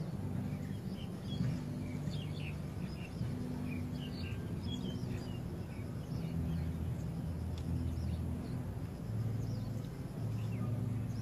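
Small birds chirping and twittering in short, scattered calls over a low, steady hum that shifts in pitch every second or so.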